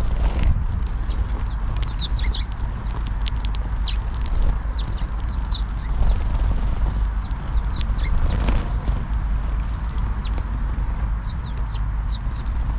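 A flock of house sparrows chirping, with many quick short chirps throughout. Their beaks tap on the wooden bench as they peck rice, and there are brief bursts of wing flutter as birds fly on and off. A steady low rumble runs underneath.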